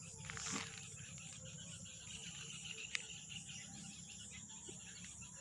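Insects chirping steadily in the background, a fine even trill, with a brief rustle about half a second in and one sharp click near three seconds.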